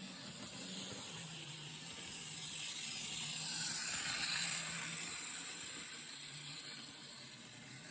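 Model train running on its track, a steady mechanical hiss that swells as it passes about four seconds in and then fades.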